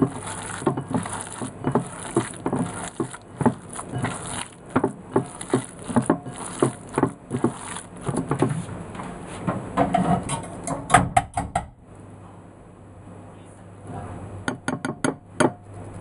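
Hands squeezing and kneading raw ground pork filling in a ceramic bowl: wet squelching and slapping, about three strokes a second. After about twelve seconds it goes quieter, with a few sharp clicks near the end.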